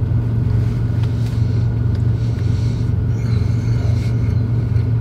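Kenworth T680 semi-truck's diesel engine idling, a steady low rumble heard inside the cab.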